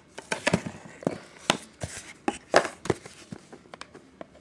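Trading-card box packaging being handled and opened by hand: an irregular run of sharp crackles and taps.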